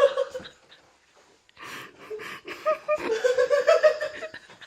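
A person laughing uncontrollably in high, wavering fits, set off by a shoe's fart-like squeak. There is a short laugh at the start, a pause about a second in, then a longer fit of laughter.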